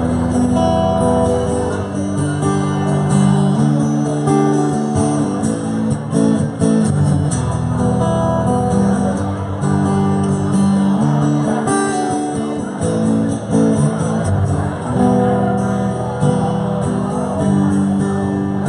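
Live band playing an instrumental passage led by strummed acoustic guitar, with no singing.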